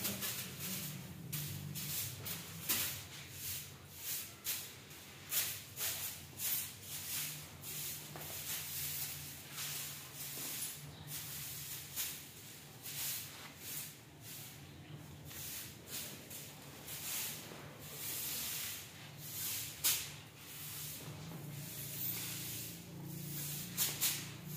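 A soft grass broom swishing across a marble tile floor in repeated short, irregular strokes, one or two a second, with a faint low hum underneath.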